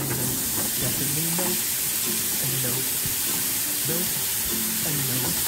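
Blended cauliflower going into a hot pan of garlic fried in butter and olive oil, sizzling steadily as a silicone spatula scrapes it off the plate and stirs it.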